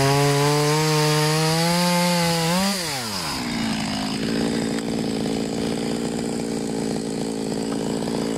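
Stihl top-handle pruning chainsaw's two-stroke engine under load, ripping lengthwise through a log, which is harder going than a cross cut. About three seconds in the cut finishes: the engine revs up briefly, then drops to a steady idle.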